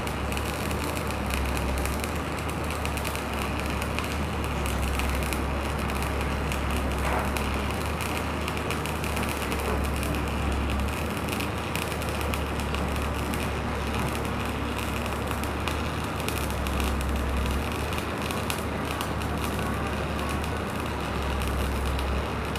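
Electric arc welding on a vertical joint: the arc crackles and sizzles steadily without a break, with a low hum underneath.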